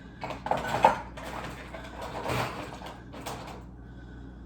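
Rummaging through a kitchen drawer or cupboard: several knocks and clattering of utensils, loudest about a second in, with a few more knocks later.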